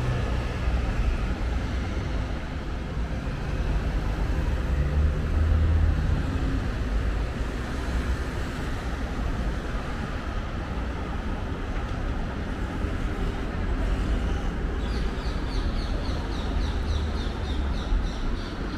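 City street traffic: cars and scooters passing through a busy intersection, a steady low rumble of engines and tyres. A quick run of high chirps sounds near the end.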